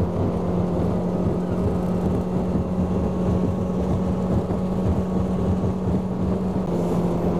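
Yamaha SHO 115 hp four-stroke outboard running steadily at speed, driving an aluminium bass boat through choppy water, with wind rushing past.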